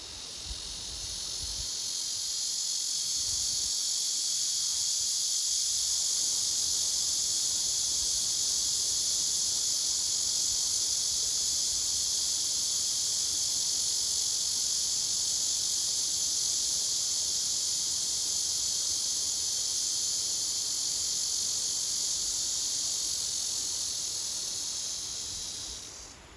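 Cicadas droning in one continuous, high-pitched chorus that swells in over the first couple of seconds, holds steady, and cuts off shortly before the end.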